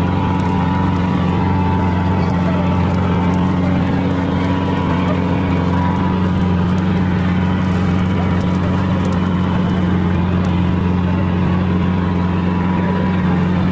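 Fishing trawler's engine running steadily: a constant, even low drone.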